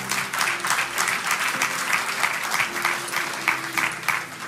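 Audience applauding: a steady, dense clatter of clapping that dies away near the end.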